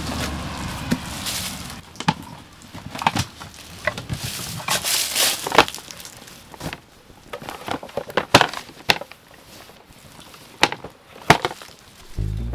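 Irregular knocks, clicks and rustling of camping gear being handled and set up, some of it sounding like hard wood.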